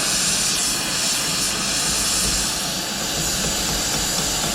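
A steady, loud rushing hiss from equipment running continuously, such as a burner or blower.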